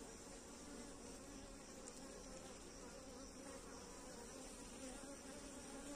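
Honeybees of a nucleus colony buzzing around a comb frame lifted out of the hive, a faint, even hum.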